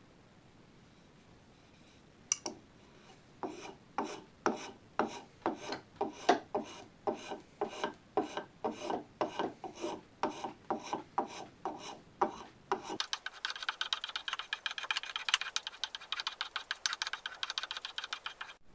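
Hand rasp or file being worked in steady strokes, about two a second, across a wooden gun stock during shaping. About two-thirds of the way in it changes to a faster, higher scraping run that stops abruptly near the end.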